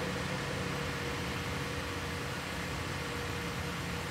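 Steady hum of an idling vehicle engine, with a faint steady tone over it.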